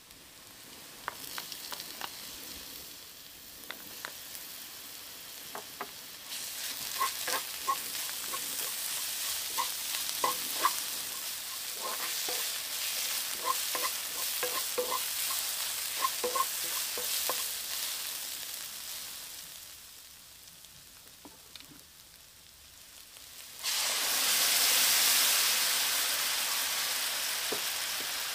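Chopped onion, garlic and ginger sizzling in oil in a stainless steel frying pan, with a wooden spoon scraping and knocking against the pan as it is stirred. The sizzle dies down, then about three-quarters of the way in a much louder hiss starts suddenly as crushed tomatoes hit the hot pan.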